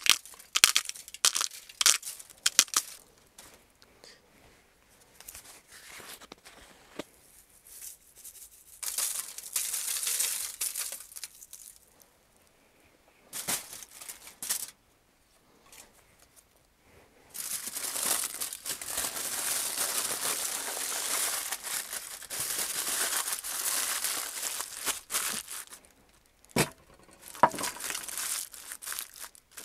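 Aluminium foil crinkling and rustling as food is folded and wrapped in it: short bursts at first, then several seconds of continuous crumpling. There are a few sharp clicks near the start.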